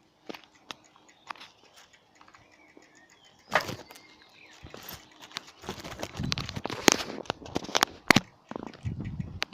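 Birds' wings flapping, with sharp clicks and rustling. There is a loud burst about three and a half seconds in, and the clicks grow dense and busy from about six seconds in.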